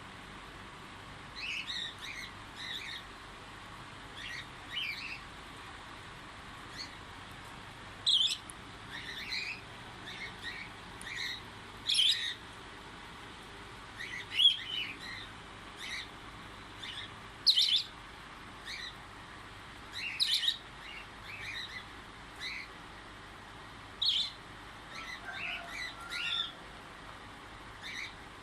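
Small pet parrots chirping: short, sharp calls come every couple of seconds, some loud, with quieter twittering in between.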